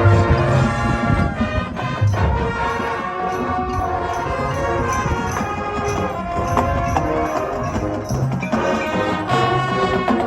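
High school marching band playing: sustained brass and woodwind chords over percussion, with heavy low drum hits at the start, about two seconds in, and again near the end.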